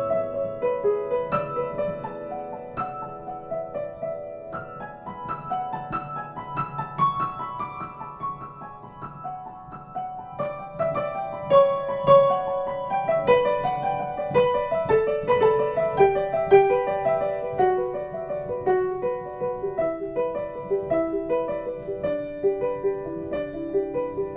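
Solo piano playing a continuous, flowing piece, its notes struck one after another and left to ring.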